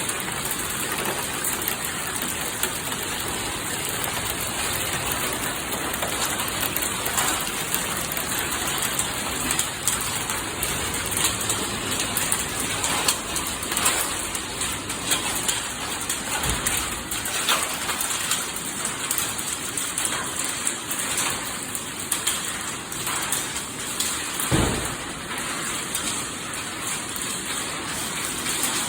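Heavy rain and hail pelting down in a steady downpour, with frequent sharp hits of hailstones throughout. Two dull low thuds come through, one past the middle and one near the end.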